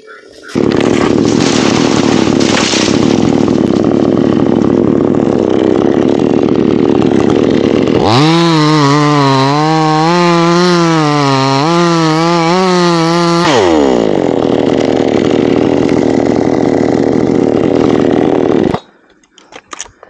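Chainsaw running at full throttle, cutting into a dry teak trunk. From about eight seconds in, the engine note comes through clear and wavers as the chain bites under load, then drops in pitch. The saw cuts off suddenly near the end.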